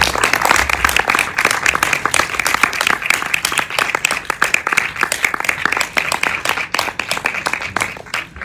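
Audience applauding in a cinema hall, the dense clapping thinning out and dying away near the end.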